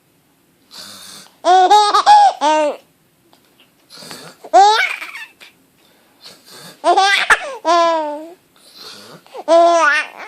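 Four-month-old baby laughing in high-pitched peals: four rounds of giggles a couple of seconds apart, the first a run of three quick peals. Each round is preceded by a quieter breathy noise.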